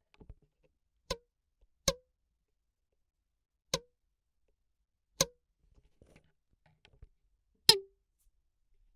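Five sharp single strikes of a hand-held foley tool on a hard surface, made for cartoon sound effects. The strikes come at uneven intervals, with faint ticks between them, and each has a brief ringing tone. The last strike is the loudest.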